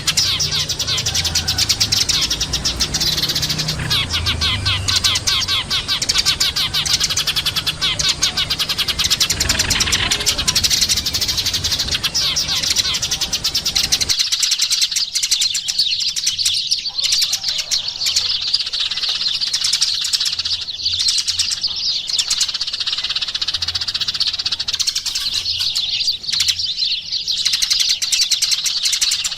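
Eurasian tree sparrows chirping in a dense, continuous chorus of rapid, overlapping chirps. About halfway through, the low background noise cuts off suddenly, leaving the chirping clearer.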